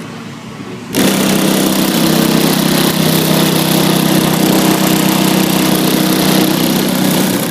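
A car audio system playing a loud, steady buzzing bass tone for a sound-pressure-level measurement, starting suddenly about a second in and cutting off near the end.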